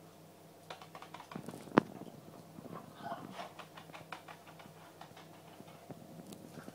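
A small dog's claws scrabbling and clicking on a ceramic tile floor as it tussles with a push broom, the broom head tapping and scraping on the tiles. One sharp knock a little under two seconds in is the loudest sound, and the tapping thins out after about four and a half seconds.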